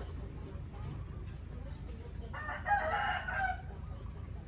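A rooster crows once, a call of a bit over a second a little past the middle, over a steady low rumble.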